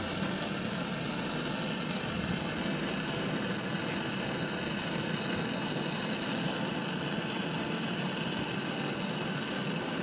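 Handheld gas-canister torch burning with a steady hiss as its flame heats a copper pipe joint on a refrigerator compressor for brazing.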